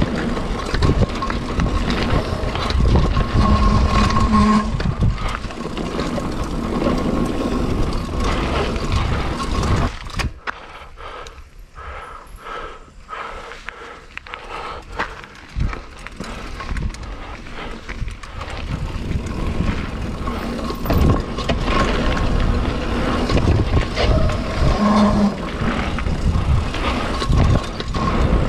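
Mountain bike riding fast down a dirt forest trail, heard from a camera on the rider: wind on the microphone, tyre noise and the bike's rattling over the bumpy ground. The noise drops for several seconds about a third of the way in, then builds back up.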